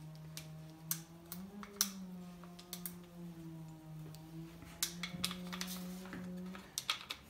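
Sharp clicks and small knocks of plastic and metal parts being handled and fitted onto an airsoft rifle, scattered irregularly, over a steady droning hum that wavers a little in pitch and stops shortly before the end.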